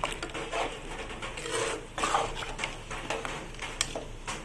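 A metal spoon stirring thick dal and mutton in a metal pot: irregular wet swishes, with a few sharp clicks of the spoon against the pot.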